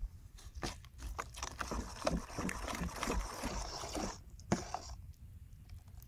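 Metal spoon stirring a wet batter in a stainless steel bowl: continuous scraping with quick clinks against the bowl, easing off after about four seconds, then one sharper clink.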